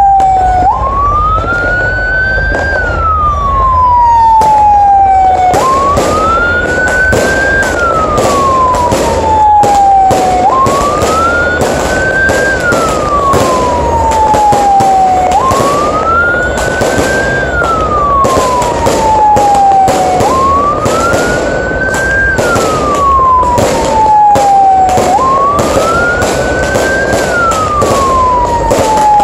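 Fireworks bursting and crackling close overhead, the crackles coming thick and fast from about five seconds in. Over them a siren wails, rising quickly and falling slowly again and again, about every five seconds.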